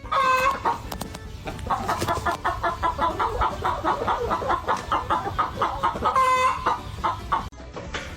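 Chicken clucking: a loud squawk, then a quick run of short clucks, then another squawk about six seconds in.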